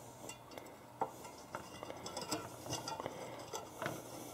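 Scattered light clicks and clinks of a recoil spring being pressed down inside a PVC tube on a dial scale, coming more often from about a second in, with a faint low hum underneath.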